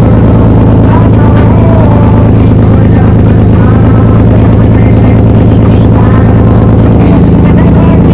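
Infiniti G35 sedan's 3.5-litre V6 running at a steady speed, a loud, unchanging drone that is distorted at the microphone, with a voice faintly over it.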